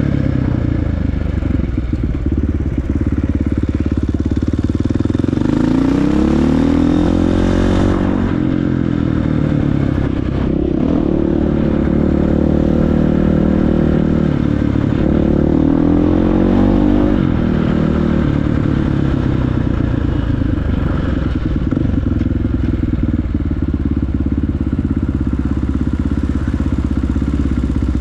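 Dirt bike engine running under way as it is ridden, rising in pitch twice as the rider opens the throttle, about six seconds in and again about fifteen seconds in.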